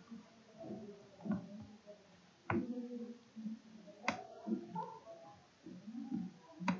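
Three sharp computer mouse clicks at uneven intervals, over a faint low murmur.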